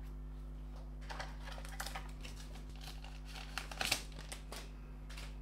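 Trading cards and a foil retail pack wrapper being handled, crinkling and clicking in short scattered bursts as a new pack is opened, busiest near the end. A faint steady hum runs underneath.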